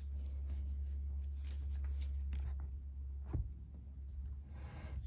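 Paper yarn rustling and scratching as it is crocheted with a hook, with a soft knock about three seconds in and a rustle near the end, over a steady low hum.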